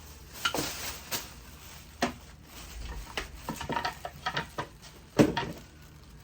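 Empty plastic hair-product bottles knocking and clattering as they are handled and thrown out, a string of sharp knocks with the loudest about five seconds in.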